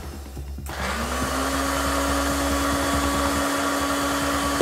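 Electric countertop blender switched on a little under a second in. Its motor rises quickly in pitch, then runs steadily.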